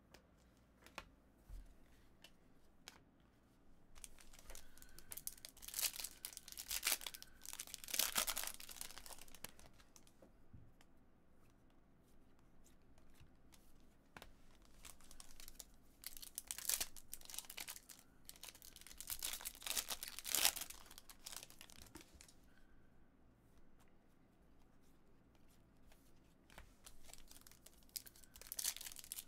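Baseball trading-card pack wrappers being torn open and crinkled by hand, in several bouts of ripping and rustling with quieter pauses between.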